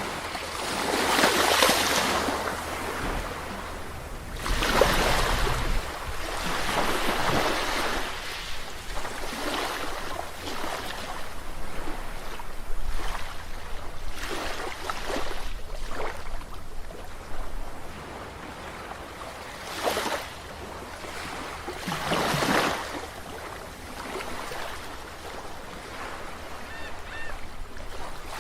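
Ocean waves breaking and washing up the shore, each surge swelling and fading over a second or two, several times in a row at uneven intervals.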